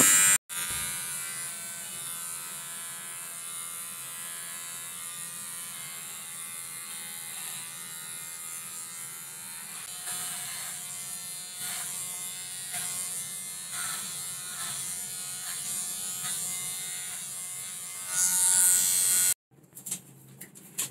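Cordless electric hair trimmer running with a steady buzz as it is run through the hair at the side of the head, with faint repeated cutting strokes from about halfway. It grows louder near the end, then cuts off suddenly.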